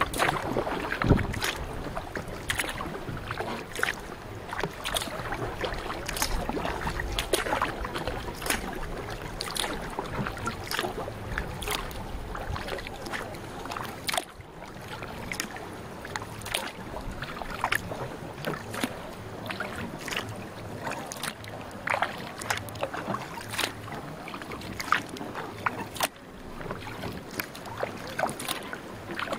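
A canoe being paddled steadily at sea: the paddle blade splashes into the water about once a second.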